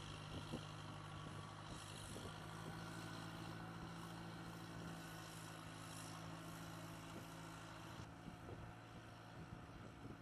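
An engine running steadily, a low even drone with some wind-like hiss.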